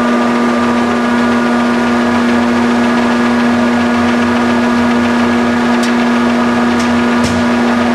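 Cincinnati Milacron 220-8 centerless grinder running under power: a loud, steady hum with a few fainter steady tones above it, unchanging throughout.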